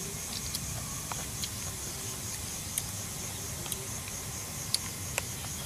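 Outdoor night ambience: a steady high-pitched insect chirring over a low rumble, with a few small sharp clicks, the loudest two near the end.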